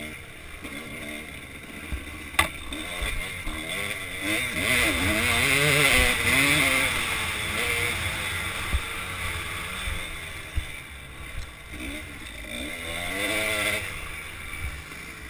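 Kawasaki KDX200 two-stroke single-cylinder dirt bike engine, ridden off-road, its revs rising and falling constantly as the throttle is worked on a rocky trail. A sharp knock about two seconds in, with a few lighter knocks later.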